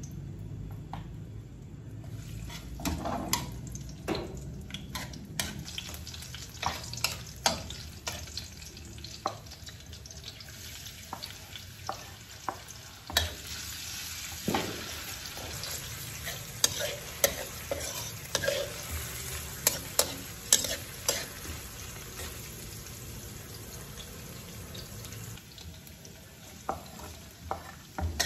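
Garlic and onion sizzling in a metal wok, the sizzle filling in about two seconds in, while a metal spatula stirs and scrapes the pan with frequent sharp clicks of metal on metal.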